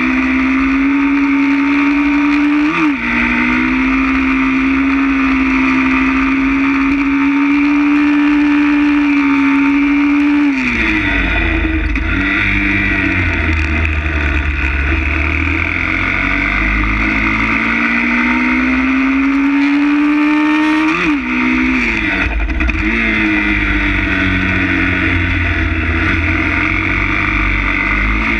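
160 cc pit bike's single-cylinder four-stroke engine, heard from onboard, held at high revs with a quick gear change about three seconds in. Around the middle the revs fall away as the bike slows, then climb steadily again, with another quick shift and more rising and falling toward the end.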